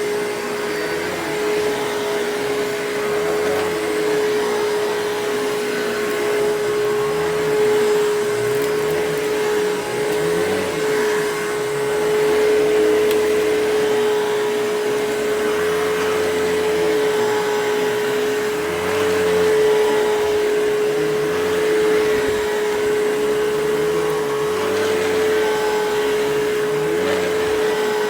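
Eureka Capture Pet vacuum cleaner running steadily, its motor holding one tone, with a brushroll the owner calls rough. The low rumble swells and fades every second or two as it works over the floor.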